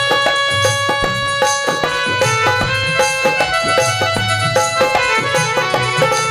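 Instrumental bhajan music without singing: a dholak beats a steady rhythm under a melody of held notes.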